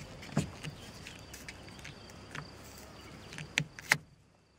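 Faint hiss of air escaping from a car tyre's valve as the compressor hose's screw-on chuck is unscrewed, with a few small clicks of the fitting. The hiss cuts off suddenly about four seconds in as the chuck comes free and the valve seals.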